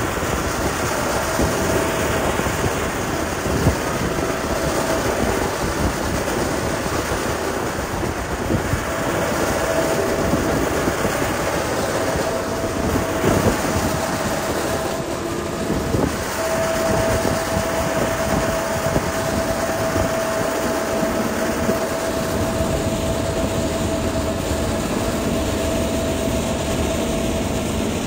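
Heavy diesel road-construction machinery running under load while working gravel: a steady whine over a continuous rattle with many short knocks.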